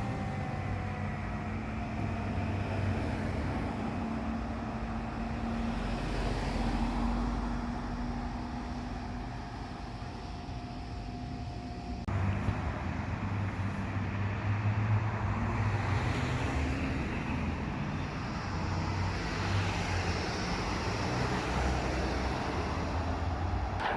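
Fire apparatus diesel engines running, a steady low rumble with road traffic noise. A faint steady whine stops abruptly about halfway through, and the rumble is louder after that.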